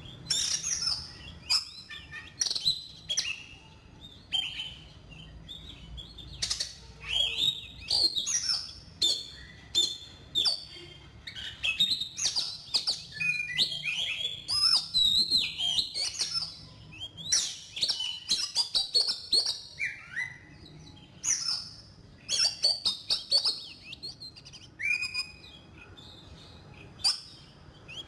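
Oriental magpie-robin singing: quick runs of varied whistles and chirps with sweeping notes, broken by short pauses between phrases.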